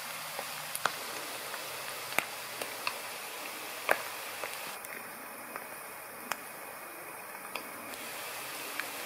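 Coated whitebait frying in hot vegetable oil in a wok: a steady sizzle with sharp spitting pops every second or so, the loudest about four seconds in.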